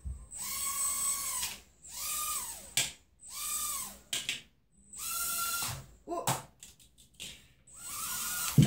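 Toy mini quadcopter's tiny motors and propellers whining in five short bursts, each rising in pitch as the throttle is pushed up and falling away as it is let off. There are a few short knocks between the bursts.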